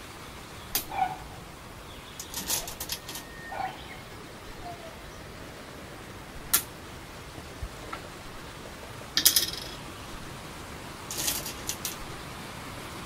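Go stones clacking against each other and the wooden board as a hand picks up and sets down stones. The clacks come singly and in small quick clusters, the loudest a rapid run about nine seconds in.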